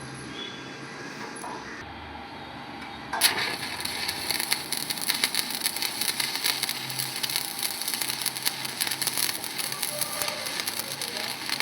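Electric arc welding: after a quiet pause the arc strikes about three seconds in and crackles steadily.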